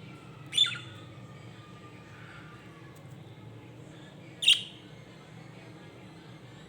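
Pet budgerigars chirping: two loud, sharp calls about four seconds apart, with faint quieter chatter between them over a steady low background hum.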